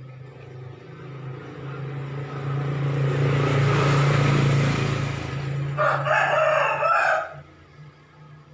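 A green junglefowl rooster gives one short crow about six seconds in, lasting around a second and a half. Before it, a rush of noise swells and fades over a few seconds, from a passing vehicle.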